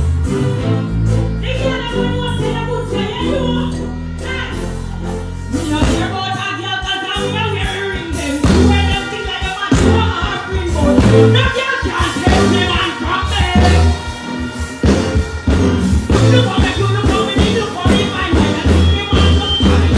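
Live band music played over a stage sound system, with a woman's voice singing into a microphone over it. A held bass line drops out about six seconds in and a choppier rhythmic beat carries on.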